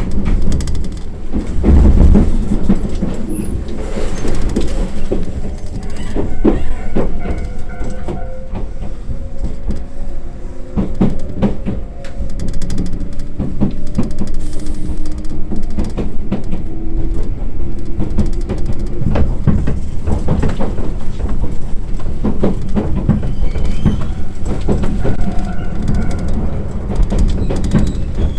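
Iyo Railway train running on the rails, with repeated clicks and knocks of the wheels over the track and a faint whine that rises in pitch.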